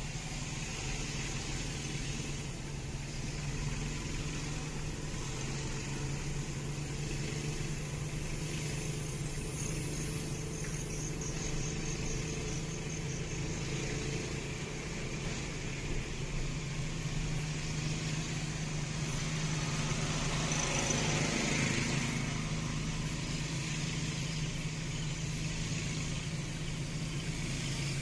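Steady running noise of a small motorcycle engine towing a car, with tyre and road noise heard from inside the towed car's cabin. The noise swells louder about twenty seconds in, then settles.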